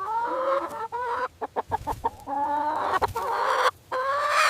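Chicken calling: a run of several drawn-out, pitched clucks and squawks with short breaks between them.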